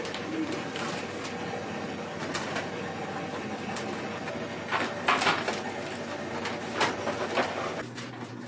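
Work-kitchen background: a steady machine hum under scattered clicks and knocks from handling utensils, with the loudest clatter about five seconds in.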